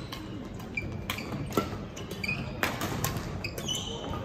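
Badminton play on an indoor court: several sharp racket-on-shuttlecock hits, with short high squeaks of court shoes on the floor between them.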